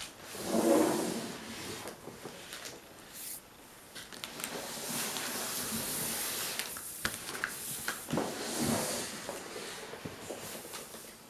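Cardboard packaging being handled: a large printed cardboard sheet lifted, slid and set down, with scraping and rustling, loudest about a second in, and a few sharp taps.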